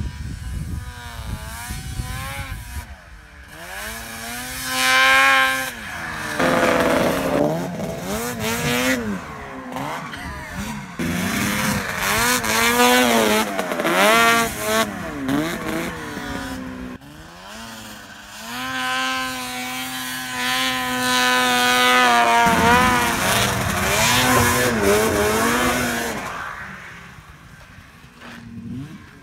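1998 Ski-Doo 583 snowmobile's two-stroke twin engine revving hard, its pitch climbing and falling again and again as the sled is ridden and jumped through the snow. The sound fades toward the end.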